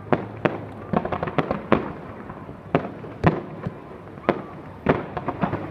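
Fireworks going off: a string of sharp booms and bangs at irregular intervals, some in quick crackling clusters, each trailing off briefly, the loudest about three seconds in.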